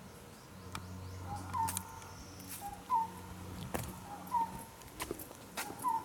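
A bird repeating a short two-note call, a brief lower note then a higher hooked one, about every one and a half seconds. Scattered sharp clicks and an on-and-off low hum are heard along with it.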